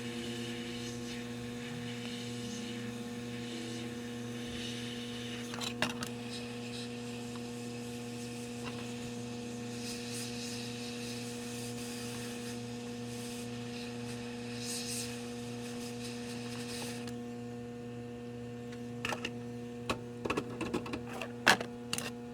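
Steady electrical mains hum from the shop's powered equipment. A few sharp clicks and taps come near the end.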